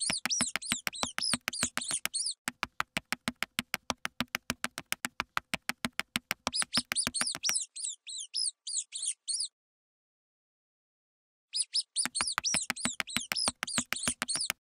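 Mouse sound effects: rapid high squeaks over a fast run of light clicks like tiny scurrying footsteps, about eight a second. The sound stops for about two seconds past the middle, then the squeaking and scurrying start again.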